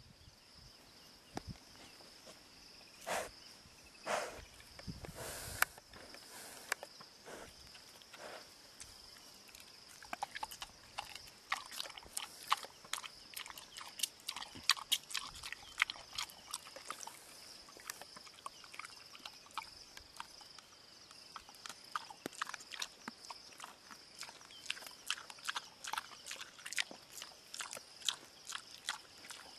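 Young common warthog eating marula fruit, peeling it in its mouth and crunching the seed, heard as rapid, sharp, wet chewing clicks that come thick and fast from about a third of the way in. A few louder snuffles come in the first several seconds.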